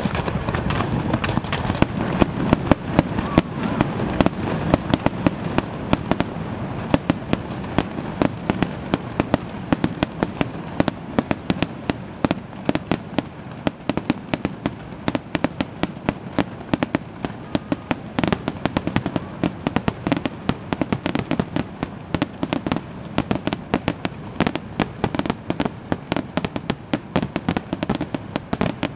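Fireworks display: a dense, continuous barrage of bangs and crackling from rockets and aerial shells bursting, many sharp reports a second with no let-up.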